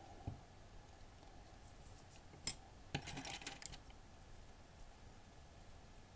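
A small hard object knocked onto a wooden tabletop: one sharp click about two and a half seconds in, then a short spell of light clicks and rattles, as the blue stick used to push stuffing into a crocheted leg is put down.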